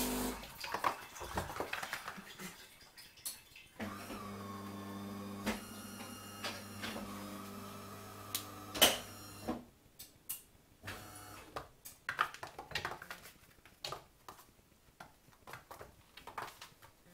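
Scattered light taps, clicks and scrabbles of a Siamese kitten's paws and claws on a vinyl floor and against a mirrored cupboard door. One sharp knock, the loudest sound, comes near nine seconds in. A steady electrical hum runs from about four seconds in to about half-way through.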